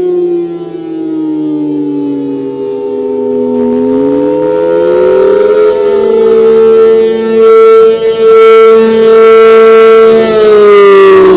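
ACA Allertor 125 civil defense siren with an 8/12-port rotor, sounding the Attack signal as a two-tone wail. Its pitch falls to a low point, climbs again about four seconds in, holds at the top for several seconds, then begins to fall near the end.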